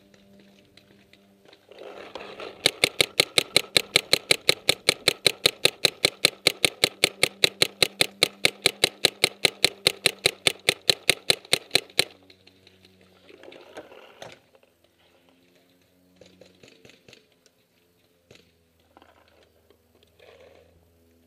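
Paintball marker firing a long rapid string, about five shots a second for some nine seconds, then stopping abruptly. A rushing noise starts just before the first shot and runs beneath the string.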